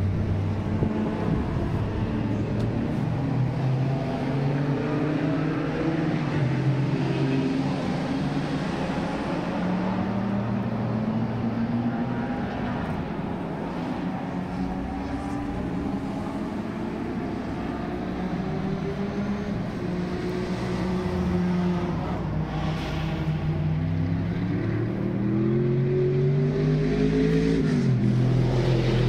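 Historic racing car engines running on the circuit, their pitch rising and falling as they rev through the gears. Near the end one engine climbs in pitch and then drops sharply.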